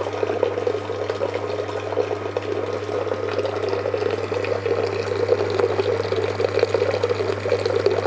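Beer line cleaning solution streaming from an open beer faucet and splashing steadily into a plastic container, with a steady low hum from the Mark II keg and carboy washer pump running beneath.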